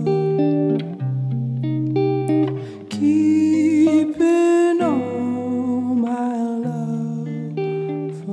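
Background music: a mellow song led by guitar over a bass line that steps from note to note every second or two.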